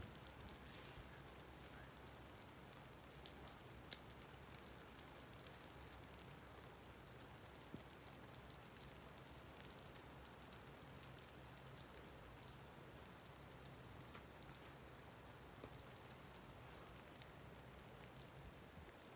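Near silence: a faint steady hiss with a few scattered light ticks, the clearest about four seconds and about eight seconds in.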